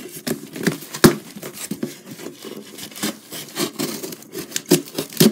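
Cardboard box being worked open by hand: packing tape and cardboard flaps scraping, rubbing and crinkling in quick irregular clicks, with one sharp knock about a second in.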